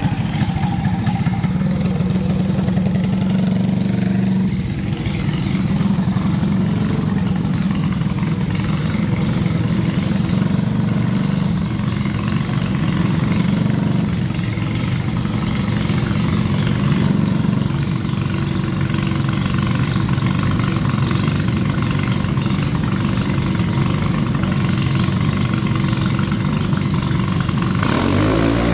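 Junior dragster engine running steadily at a low, even speed, with no clear revving. The sound changes abruptly near the end.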